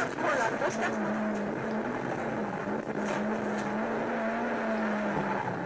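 Rally car engine running at fairly steady revs, its note wavering and dipping slightly now and then.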